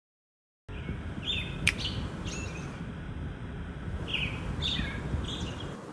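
Birds chirping in short calls, about five or six over a few seconds, over a steady low rumble of ambient noise. A single sharp click sounds about a second in.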